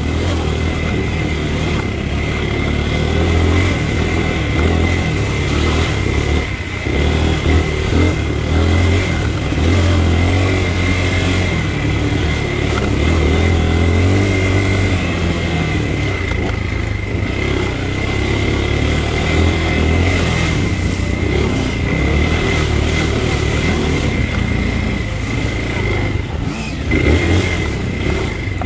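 Dirt bike engine running while being ridden, its pitch and loudness rising and falling as the throttle is opened and closed.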